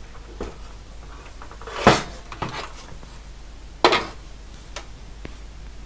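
Metal chassis of a DEC RX02 floppy drive being turned over by hand and set down on a wooden workbench: two loud clunks about two seconds apart, with lighter knocks and rattles around them.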